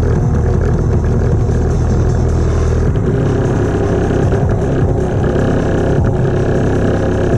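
Slowed-down recording of a Nissan SR20DET turbocharged four-cylinder engine played through a 3D-printed speaker as a bass test: a loud, deep, steady drone whose low tones shift about three seconds in.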